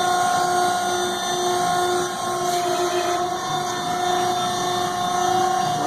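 Horizontal baler's hydraulic power unit running with a steady whine while the door-open button is held, driving the door open.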